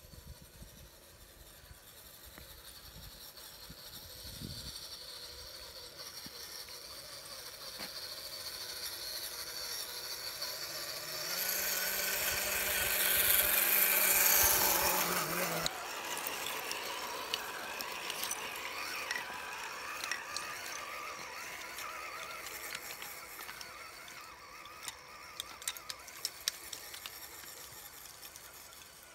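Scale RC truck (RC4WD Trail Finder 2) driving through a muddy puddle: the electric motor and gearbox whine and the water splashes, growing louder as it comes close, peaking a little before halfway and dropping off sharply. A fainter run of motor noise follows, with a few sharp clicks near the end.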